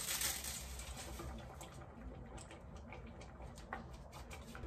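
Broth boiling in a pot: a brief hiss at the start, then scattered small bubbling pops.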